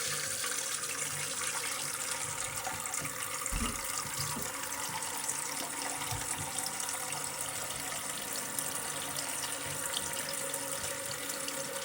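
Water running steadily into a toilet tank as it refills after the water supply is turned back on.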